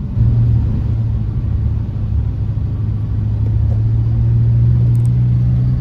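Car engine running with a steady low hum over a rumble as the car moves slowly through floodwater; the hum steps louder and slightly lower a fraction of a second in.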